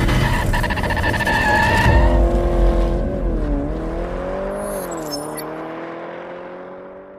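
Car sound effect for an intro: an engine running hard, with screeching noise through the first two seconds. Then a single engine note remains, dipping in pitch twice and rising slowly as it fades away near the end.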